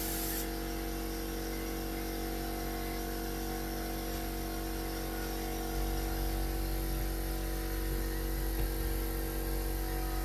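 Air compressor running steadily with a mechanical hum, powering a spray gun whose hiss cuts off just after the start. A low rumble grows louder about six seconds in.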